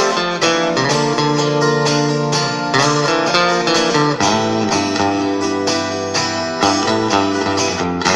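Guitar strummed in a steady rhythm, with the chords changing every few seconds, playing the instrumental introduction of a song.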